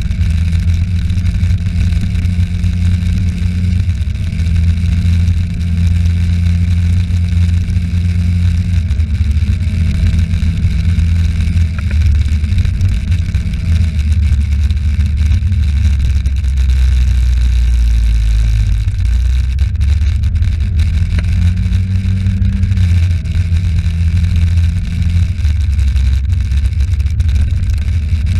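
Engine of a road vehicle driving along a street, under a heavy low rumble. Its pitch climbs slowly and drops back several times.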